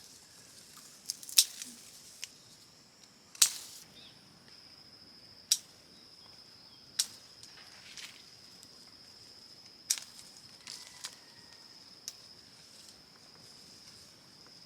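A string of sharp clicks and knocks at irregular intervals, about one every second or two, over a steady high-pitched whine.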